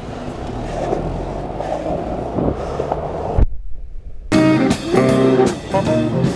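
Music over the rolling noise of skateboard wheels on pavement and city traffic. About three and a half seconds in, the sound cuts out for nearly a second, then the music comes back clearly.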